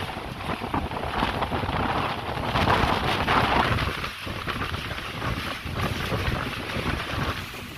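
Windstorm: strong gusting wind, a dense rushing noise that swells hardest about three seconds in and then eases a little.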